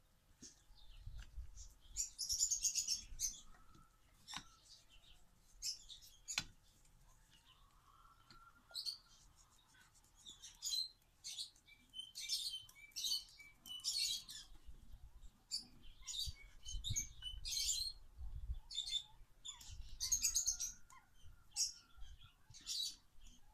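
Small birds chirping in quick repeated bursts, on and off throughout, with a faint low rumble underneath.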